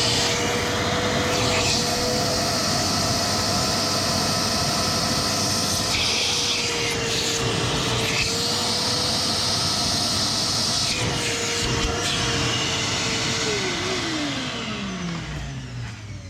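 Wet vac motor running steadily, its rushing sound shifting a few times, then switched off and winding down with a falling whine over the last few seconds.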